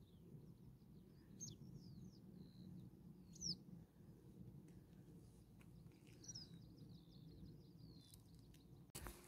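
Faint wild birdsong over a quiet low rumble: a few scattered high chirps with a quick bend in pitch, the last running into a short series of rapid notes.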